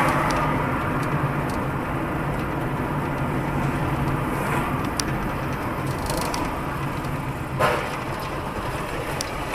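Driving noise of a car as picked up by its dashcam: a steady low engine hum under a constant hiss of tyre and road noise. There is one short, louder noise about three-quarters of the way through.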